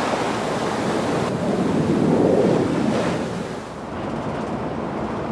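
Transrapid maglev train passing at speed on its guideway, heard as an even rush of air. It swells about two seconds in and drops back near four seconds.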